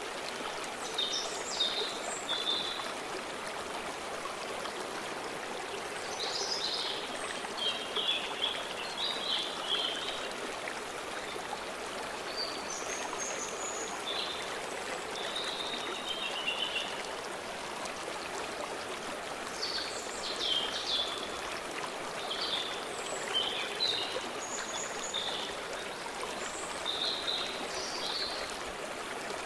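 A stream running steadily, with songbirds singing short, high chirping phrases over it every few seconds.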